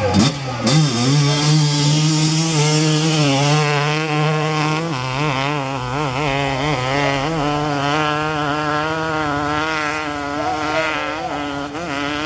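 A hill-climb motorcycle's engine running at high revs. It holds a steady pitch at first, then from about five seconds in the pitch rises and falls in quick waves. A couple of sharp pops come at the very start.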